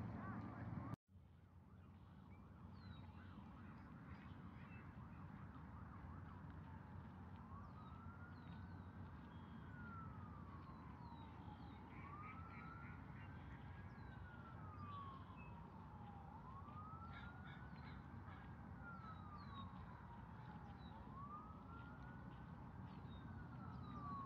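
A faint emergency vehicle siren on a slow wail, rising and falling about every four and a half seconds, starting some seven seconds in over a steady low city hum. Small high chirps of birds sit above it, and the sound drops out for an instant about a second in.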